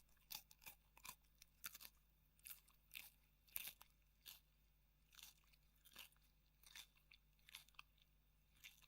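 Raw red bell pepper being chewed: irregular crisp crunches, roughly one or two a second.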